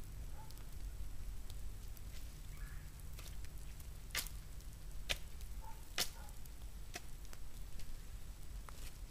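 A shovel digging into leaf-covered woodland soil: a string of sharp chops and scrapes, about one a second through the middle, over a low steady rumble.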